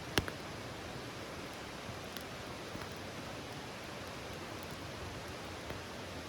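Wood campfire crackling: a few sharp pops, the loudest just after the start, over a steady hiss.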